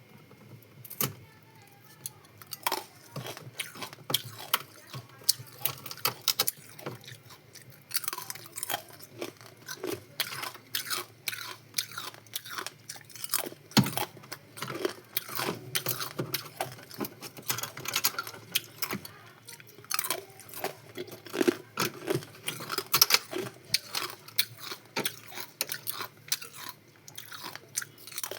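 Ice being bitten and chewed: irregular crunches and cracks, sparse at first and coming thick and fast from about eight seconds in.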